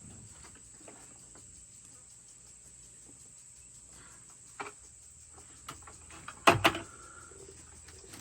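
Plastic feeder parts and bucket being handled during assembly: a few light clicks, then two sharp knocks about two-thirds of the way through.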